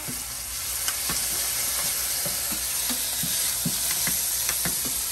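Shrimp and garlic sizzling in hot oil in a frying pan, with two wooden spatulas scraping and tapping the pan at irregular moments as the food is stir-fried.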